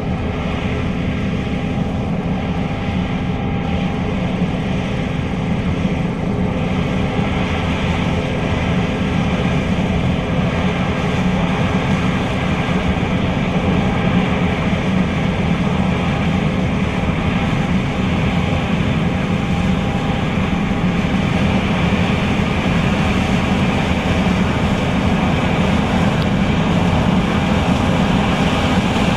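John Deere S660 combine running steadily while harvesting soybeans: a continuous engine drone and machinery whir, slowly growing a little louder.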